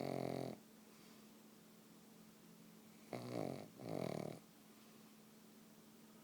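Pug snoring: a snore trailing off about half a second in, then a double snore about three seconds in, with pauses between.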